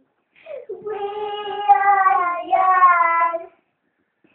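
A young child singing one long, drawn-out phrase without accompaniment, stopping about three and a half seconds in.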